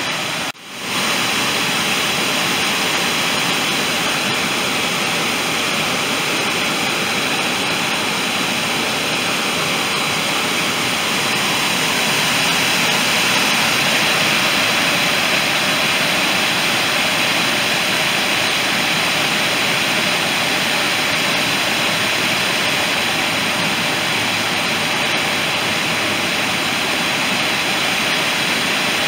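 Water pouring over a low concrete spillway dam and churning in the pool below it: a loud, steady rush that cuts out briefly about half a second in and grows a little louder about twelve seconds in.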